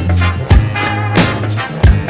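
Upbeat background music with a steady drum beat and a bass line under sustained instrumental notes.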